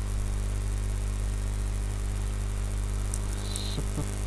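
Steady electrical hum and buzz with many evenly spaced overtones, typical of mains hum picked up by the recording microphone. A few faint keyboard clicks come near the end.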